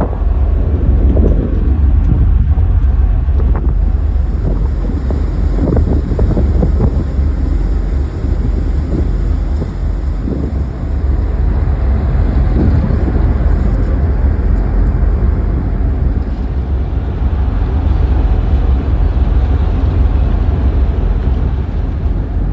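Heavy wind buffeting the microphone over a steady low rumble of a moving vehicle or vessel.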